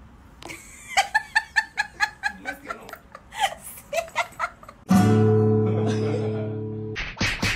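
High-pitched giggling laughter in quick short bursts, then an acoustic guitar chord strummed hard about five seconds in, ringing out and slowly fading, followed near the end by quick rhythmic strumming.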